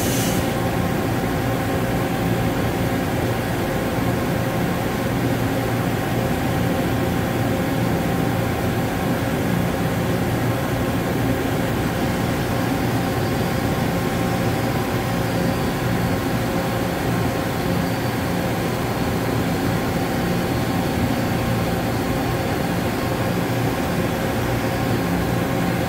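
5-axis CNC machining centre running: a steady mechanical hum with several steady tones, joined about halfway through by a faint high whine that wavers in pitch.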